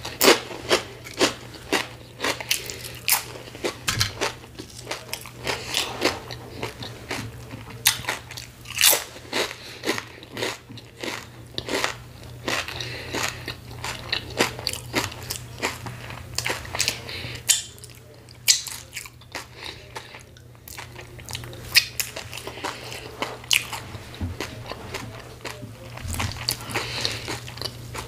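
Close-miked crunching and chewing of potato chips, many sharp crunches in quick succession, with a short, quieter spell of chewing a little past the middle.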